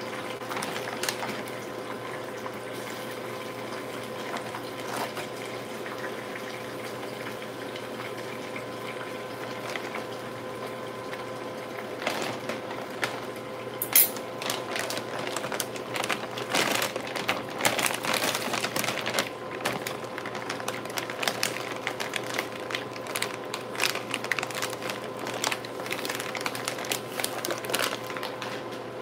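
Metal kitchen tongs and a plastic food bag being handled on a stone counter: rustling and light clicks over a steady hum, with one sharp clack about halfway through as the tongs are set down, and busier clicking and rustling after that.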